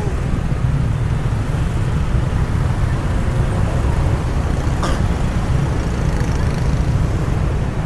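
Road traffic in a jam: a steady low rumble of engines, with one short sharp click about five seconds in.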